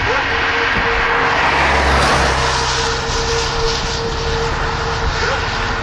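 A motor vehicle passing: engine and road noise swell to a peak about two seconds in, then slowly fade.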